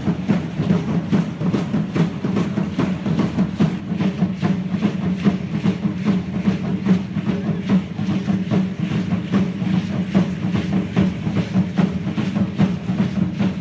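Live drumming for an Aztec-style dance: a fast, steady, even beat of large drums, with the rattling of the dancers' ankle rattles as they step.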